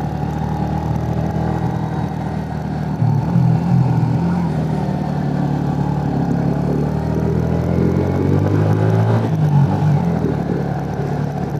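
Motorcycle engine running on the move, picking up about three seconds in and rising in pitch as it accelerates over several seconds later on, then easing back.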